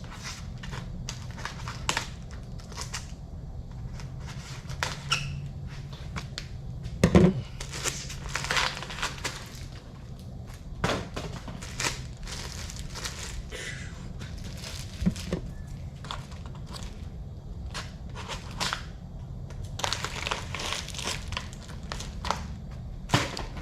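Plastic bag and protective end packaging being cut and pulled off a fishing rod: irregular rustling, crinkling and tearing with short clicks, over a steady low hum.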